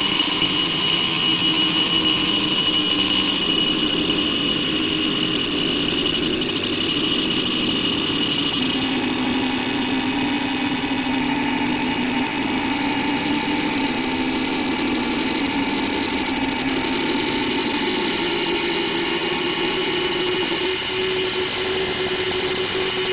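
A voice clip slowed down enormously, stretched into a continuous drone of held tones over a hiss; the pitch shifts a little every several seconds.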